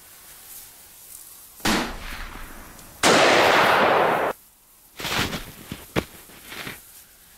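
Gunfire sound effects: a sharp report, then a loud sustained burst of fire for over a second that cuts off abruptly, then several more single cracks.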